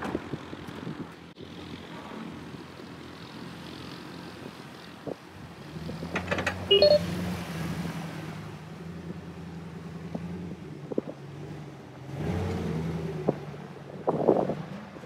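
Pickup truck engines working under load as a Ford F-250 tows a stuck Chevy Silverado through soft beach sand on a tow rope; the engine note comes in about five seconds in and swells near the end. A few short high beeps sound near the middle.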